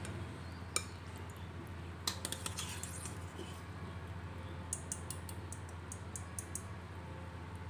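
Stainless mesh strainer clinking and scraping against a steel pot as cooked yam abacus seeds are scooped out of the water, in scattered light clicks in two small clusters. A steady low hum runs underneath.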